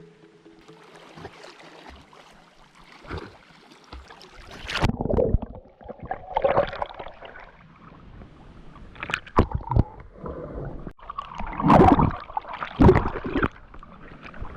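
River water splashing and sloshing as people bathe and move about in it, in irregular bursts, with the loudest splashes about five, nine, twelve and thirteen seconds in.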